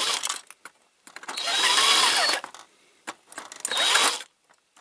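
Small electric drill running in three short bursts, its pitch rising and falling with load, drilling out a fixing in the diecast base of a Dinky toy lorry with a bigger bit.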